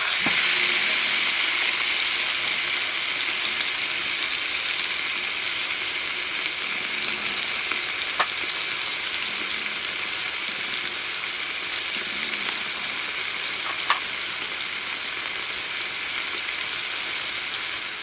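A raw ribeye steak sizzling in a hot frying pan alongside potatoes, loud from the moment it goes in and easing off slightly over the following seconds.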